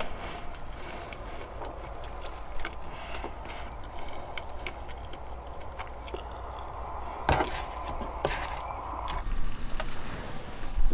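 Knife and fork cutting and scraping on a wooden plate, with small clicks of cutlery, and chewing. A few sharper clicks come in the second half.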